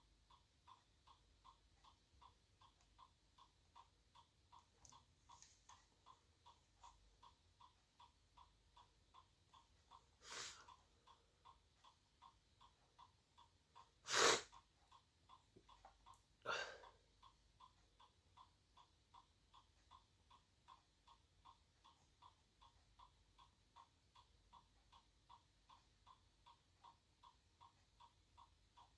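iPod's built-in piezo speaker beeping in DFU mode: short, even, high beeps repeating about three times a second, like a microwave's beep. Three louder sharp noises cut in around the middle, the second the loudest.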